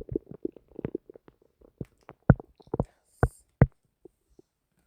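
Stomach gurgling: a rapid, irregular run of short pops and gurgles, with four louder pops between about two and four seconds in.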